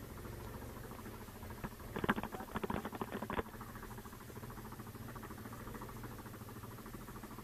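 Yamaha Grizzly 700 ATV's single-cylinder engine idling with a low, steady hum. About two seconds in, a rapid rattling clatter lasts about a second and a half.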